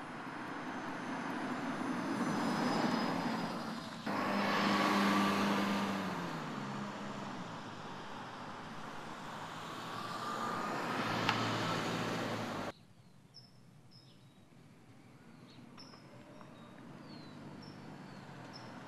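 2016 Toyota Prius V hybrid driving past on asphalt, mostly tyre and road noise with a faint drivetrain hum. The sound swells as the car approaches, with a pitch falling as it passes about five seconds in, and builds again to a second pass that cuts off abruptly a little over halfway. After that it is much quieter, with a few faint high chirps, while the car approaches slowly and the noise starts to build again.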